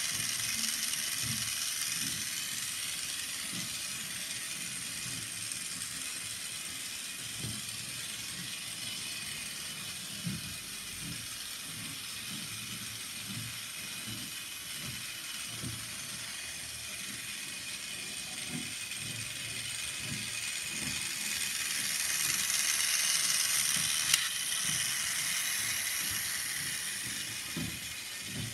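Toy train locomotive modelled on a Krauss tank engine running along plastic track. Its small electric motor and gears make a steady whine, with a quick uneven clicking of the wheels over the track joints. It grows louder as it comes back close, with one sharp click about three-quarters of the way through.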